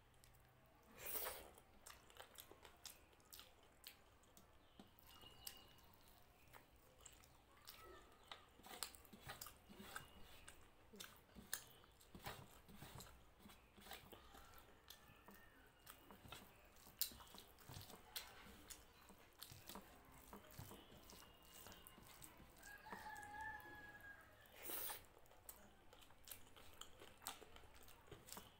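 Close-miked eating by hand: chewing, wet mouth clicks and fingers mixing rice and mutton curry on a brass plate, with two longer hissy bursts, one near the start and one near the end. A rooster crows faintly in the background late on.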